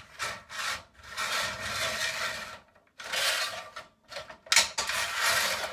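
Aluminium sliding loft ladder being pulled down: two long stretches of metal scraping and rattling, with a sharp clank about four and a half seconds in.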